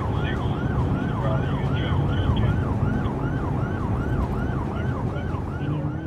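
Emergency-vehicle siren in a fast yelp, its pitch sweeping up and down about three times a second, over steady heavy road-traffic rumble; it all fades out at the very end.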